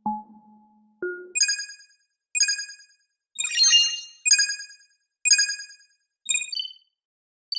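Electronic countdown sound effect: a low tone fades out, then short, bright, ringtone-like chimes sound about once a second, with a busier jingle midway and quicker beeps near the end.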